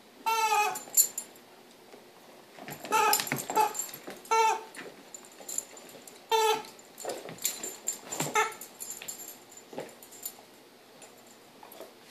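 Rubber squeaky dog toy squeezed in a yellow Labrador's jaws as it chews, giving short squeaks of the same pitch at irregular intervals, the first one longest.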